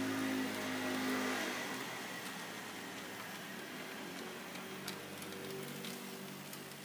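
H0-scale model tram running on track: its small electric motor and gearing give a steady hum, louder for the first couple of seconds and then fading away, with a few faint clicks later on.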